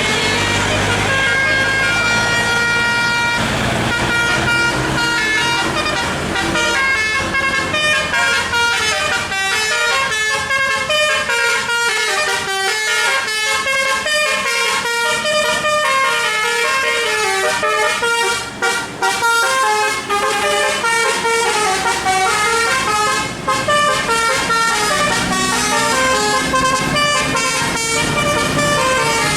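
Bus telolet horn, a multi-trumpet musical air horn, playing a fast melody of quickly changing notes without pause, with a few brief breaks past the middle.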